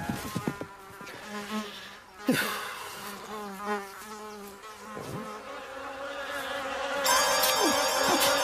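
Houseflies buzzing as a cartoon sound effect: a few wavering buzzes at first, with flies swooping past now and then. The buzzing builds into a dense swarm that gets much louder near the end.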